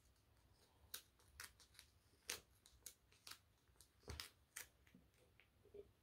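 Faint, scattered clicks and light rustles of small objects being handled by hand, about ten short ticks spread over a few seconds with near silence between them.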